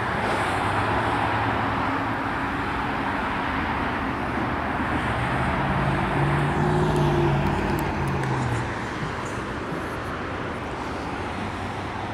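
Steady road traffic noise from a nearby highway. A vehicle's engine drone swells in the middle and fades out as it passes.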